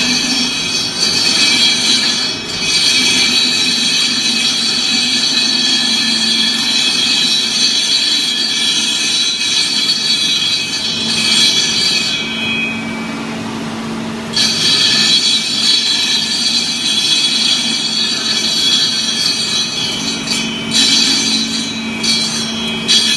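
Concrete edge grinder grinding into a floor corner: a loud, steady, high-pitched screech over a motor hum. About halfway through the screech drops away for roughly two seconds, leaving only the hum, then comes back.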